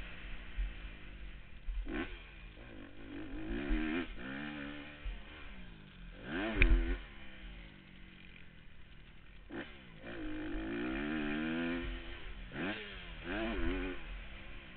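Dirt bike engine revving up and falling away again and again as the throttle is opened and shut around a motocross track. A few sharp knocks cut in, the loudest about halfway through.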